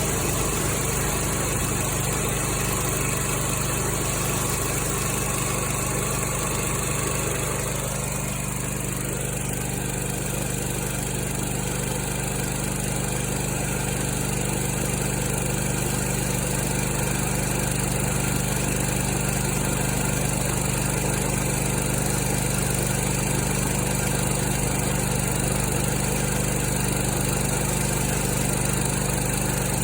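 Kohler Command Pro ECV749 EFI V-twin engine running steadily on its first start after installation, with a slight change in its sound about eight seconds in.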